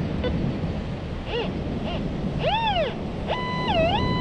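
White's MX7 metal detector sounding on a buried target: three short tones that rise and fall in pitch as the coil passes over it, then a held tone that dips and comes back up, over a steady wash of surf and wind. The detector has read the target as a jumpy penny signal, between 50 and 60.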